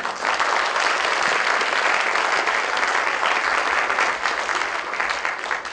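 Large audience applauding: a full round of clapping that starts at once, holds steady and begins to die away near the end.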